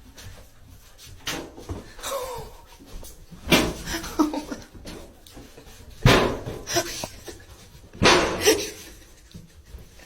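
A dog making short sounds, with a falling whine about two seconds in, among several sudden louder noises.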